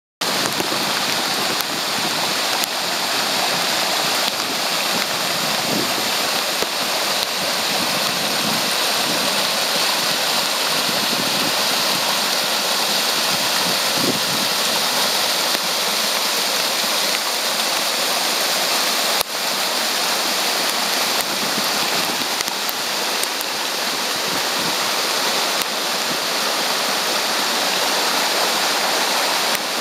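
Steady rush of heavy rain and floodwater: runoff pouring down a bank and surging across a road.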